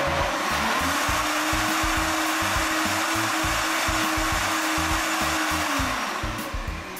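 Enpee high-speed blender running, blending a thick green smoothie thinned with water. The motor spins up in the first second, holds a steady pitch, then winds down about six seconds in.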